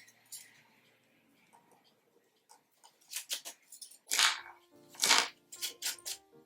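Faint background music. From about halfway through, several short, sharp hissing bursts come about a second apart.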